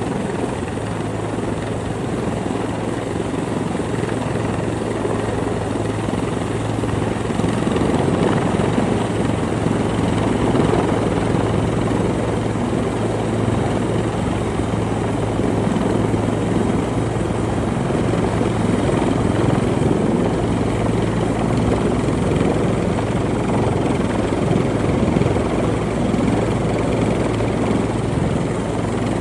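Helicopter running steadily: a constant low drone under a wide rushing noise, without a break.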